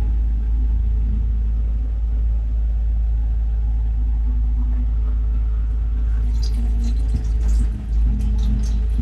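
Steady, loud low rumble, with light high clicks and ticks starting about six seconds in.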